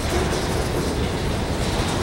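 Freight train rolling past: a steady rumble and rail noise from the cars on the track.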